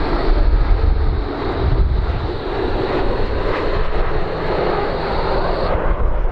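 Boeing 777 jet engines running with a steady roar, mixed with heavy wind buffeting on the microphone. The high hiss in the noise drops away shortly before the end.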